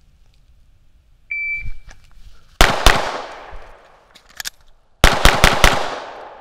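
A PACT Club Timer III shot timer gives one short start beep. A handgun then fires two quick shots, a couple of light clicks come during a roughly two-second magazine reload, and four more shots follow in fast succession, each shot trailing off in a ringing echo.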